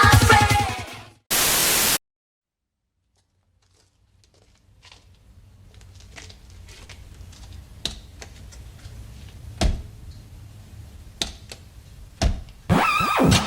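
A short burst of static, about two thirds of a second long, cuts off into silence. A faint low hum then fades in, broken by four sharp thumps a second or two apart.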